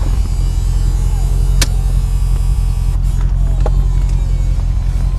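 2009 Corvette convertible's power top in operation: the top's motor hums steadily while the rear tonneau lid lifts, with two sharp clicks about two seconds apart as the mechanism moves.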